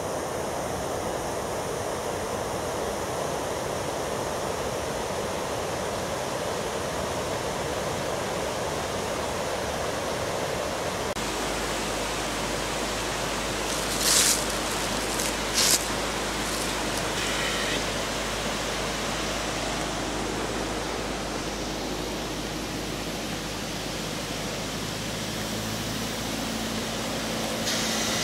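Rushing water of the upper Yubetsu River, a mountain stream running over rocks, heard as a steady hiss. Partway through, the sound changes and a low rumble joins it. Soon after come two short, sharp noises.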